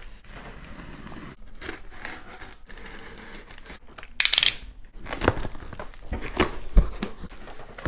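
Packing tape on a cardboard shipping box being cut and torn, with a short sharp tearing burst a little after four seconds. From about five seconds in, the cardboard flaps are pulled open with scraping and crinkling.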